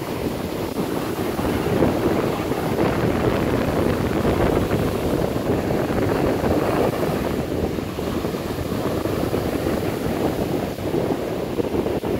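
Rough ocean surf breaking and washing up on a sandy beach, with wind buffeting the microphone in a steady rushing noise.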